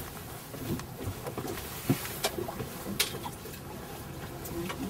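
Steady wash of water noise aboard a small fishing boat on open water, with a few sharp clicks or knocks about two and three seconds in.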